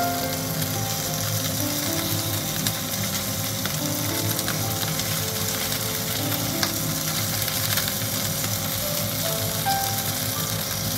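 Mirin-marinated Greenland halibut fillets sizzling in oil in a nonstick frying pan, with a few sharp clicks as the spatula and tongs tap the pan and fish.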